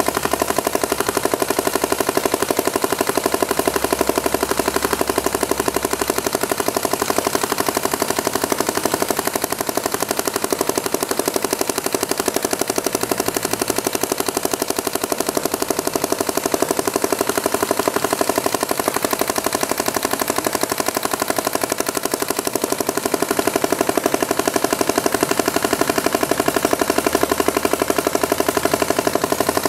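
Smart Parts Shocker RSX paintball marker firing on compressed air in a rapid, unbroken stream of shots. It is being shot continuously to see how many paintballs one tank of air will fire.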